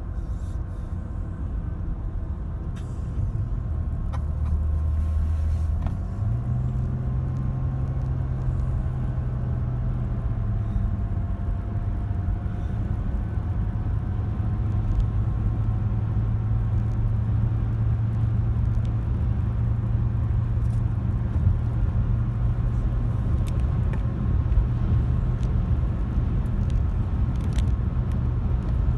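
Steady road and engine drone inside the cabin of a moving car. A low hum steps up in pitch about six seconds in and then holds.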